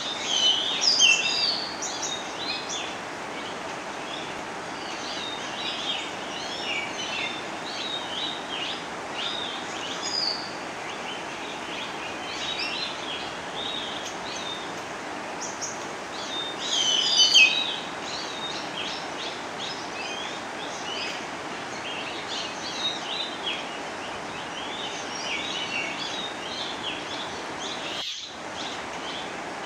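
Many birds chirping and calling in quick short notes, with two louder flurries near the start and about halfway through, over a steady even hiss. All sound cuts out for a moment near the end.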